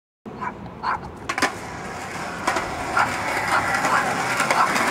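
Skateboard wheels rolling on concrete, a steady rolling noise that grows louder, with a few sharp clicks along the way.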